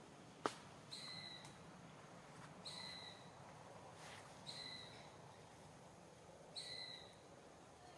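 Faint, high-pitched crying of a baby monkey: a short, steady call repeated four times, about every two seconds. A single sharp click comes about half a second in.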